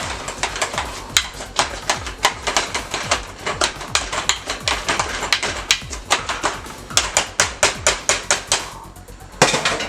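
Boiled sweet potato and pumpkin being mashed in a pot with a masher: quick, uneven knocks several times a second, pausing briefly near the end before one louder clatter.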